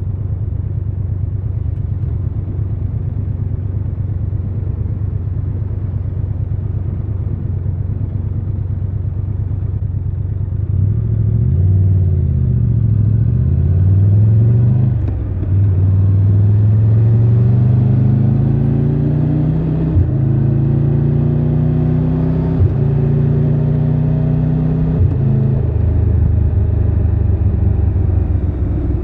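Triumph Tiger 1200 Rally Pro's three-cylinder engine running steadily at low revs, then accelerating about eleven seconds in, its pitch rising through the gears with three quick upshifts, and easing off near the end.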